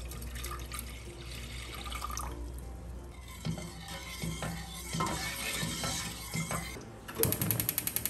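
Water pouring into a stainless steel pot, then a metal ladle stirring and scraping against the pot to dissolve agar-agar powder and sugar. Near the end, a gas stove's igniter clicks rapidly, about a dozen times in a second.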